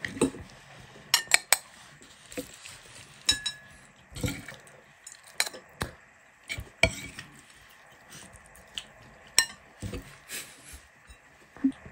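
A metal serving spoon clinking and scraping against ceramic plates while stew is dished out: a dozen or so sharp, irregular clinks, a few of them ringing briefly.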